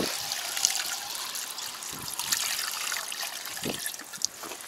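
Water poured from a plastic jug into a plastic tank through its filler opening, a steady trickling splash that tails off near the end as the jug empties.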